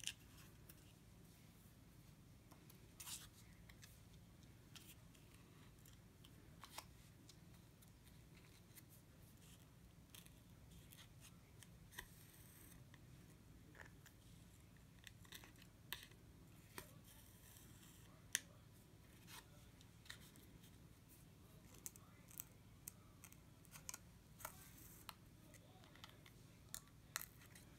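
Near silence: a low room hum with faint, irregular small clicks and ticks as a beading needle is pushed through the felt backing with a metal thimble and the thread is drawn through.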